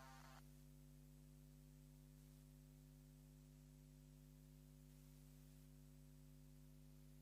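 Near silence: a steady low electrical hum from the equipment. The tail of a short synth blip dies away in the first half second.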